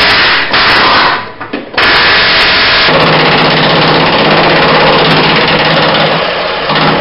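Pneumatic air tool working on the steel frame rail of a car, loud and harsh. It cuts out twice in the first two seconds, then runs steadily, with a steady low hum joining about three seconds in.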